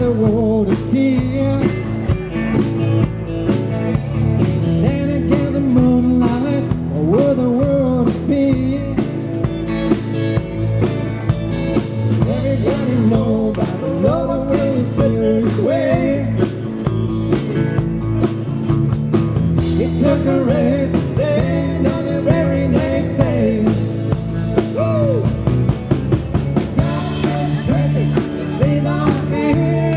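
Live country band playing: electric guitar, acoustic guitar, bass and drums, with a vocal line over a steady beat.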